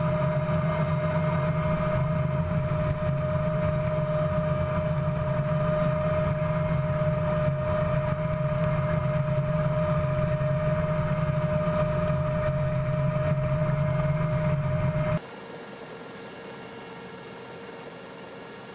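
Helicopter heard from inside its open side door while hovering for a winch hoist: a loud, steady drone of rotor and engine with a constant whine over it. About fifteen seconds in, it cuts abruptly to a much quieter steady hiss.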